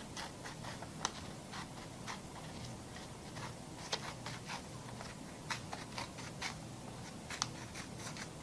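Scissors cutting scratch paper: a string of short, sharp snips at an uneven pace.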